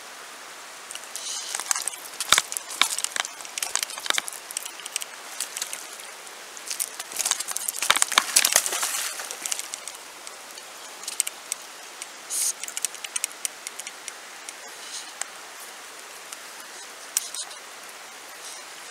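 Shallow river running over a stony bed: a steady rushing hiss. Several bursts of close crackling and clicking come over it in the first two-thirds.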